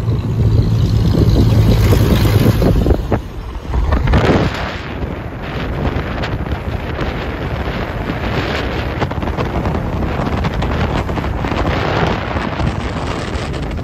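Wind rushing over the microphone from a moving car, with road noise underneath. It is heaviest at the start, drops briefly about three seconds in, then gusts and settles to a steady rush.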